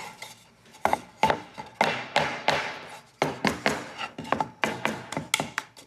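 Carved wooden cookie mold knocked hard against a wooden cutting board again and again, about three or four knocks a second, starting about a second in, to shake out the excess flour after it has been oiled and dusted.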